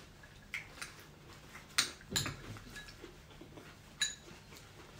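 A metal spoon clinking against a ceramic bowl as someone eats from it, a few separate clinks, the sharpest just under two seconds in and at about four seconds.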